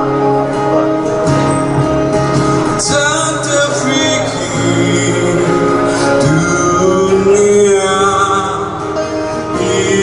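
Live acoustic performance: a man singing with acoustic guitar accompaniment.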